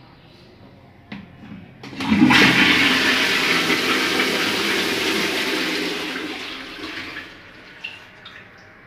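Test flush of a newly installed plastic low-down cistern. Two light clicks as it is worked are followed, about two seconds in, by water rushing down into a ceramic squat toilet pan for about five seconds before it tails off.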